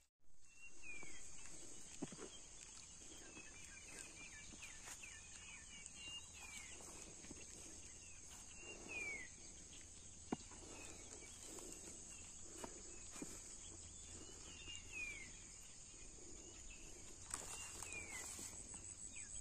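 Steady high-pitched insect chorus, with a bird's short falling chirps repeated every second or two and a few soft clicks.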